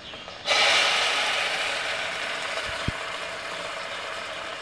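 Loud sizzle and crackle as hot caramelized sugar is poured into simmering milk and paneer, starting suddenly about half a second in and slowly fading, with a light knock about three seconds in.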